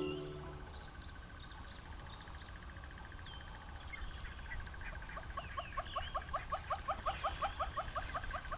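Natural bush ambience: scattered short, high bird chirps, and from about halfway a fast, steady train of chirps, about five a second, over a faint steady tone.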